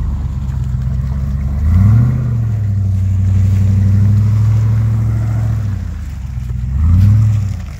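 Range Rover Classic's 3.9-litre V8 engine pulling the vehicle through deep mud at low speed, with the revs rising sharply about two seconds in and again about seven seconds in.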